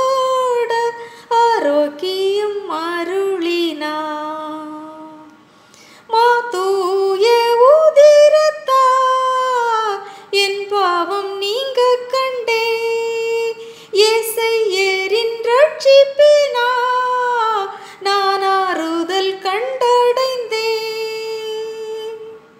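A woman singing a Tamil Christian hymn solo, in long drawn-out notes that slide up and down in pitch. The voice drops away briefly about five seconds in and ends on a long held note near the end.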